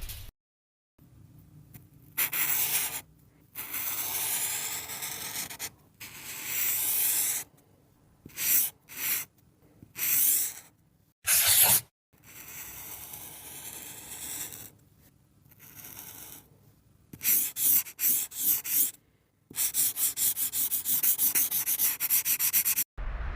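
Highlighter pen drawn across paper in a series of separate scraping strokes, some short and some about a second long. It ends in a quick back-and-forth scribble of about four strokes a second.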